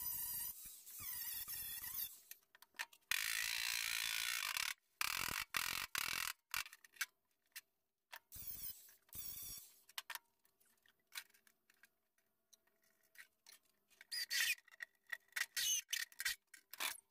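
Cordless angle grinder grinding welds smooth on a welded-in steel patch panel, the disc's whine and hiss of metal coming in short bursts that stop and start, with a few seconds of silence past the middle.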